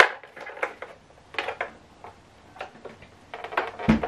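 Scattered plastic clicks and knocks as an optical (TOSLINK) cable plug is worked into a soundbar's cramped optical input, with a heavier dull knock near the end.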